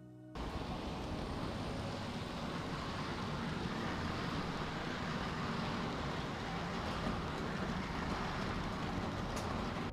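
H0-scale model passenger train running close by on sectional track: a steady rolling rumble of small metal wheels on the rails with the locomotive's motor hum, starting abruptly about half a second in, with one sharp click near the end.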